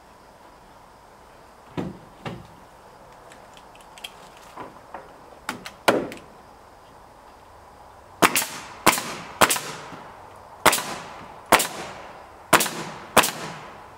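Pneumatic nail gun driving nails into a rough-sawn wooden board, seven sharp shots spaced about half a second to a second apart from about eight seconds in, each with a brief tail. Before them come a few lighter knocks as the board is handled.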